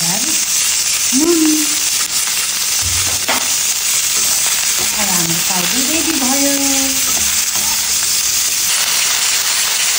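Cauliflower florets frying in hot oil in a wok, a steady sizzle, with a metal spatula stirring them near the end.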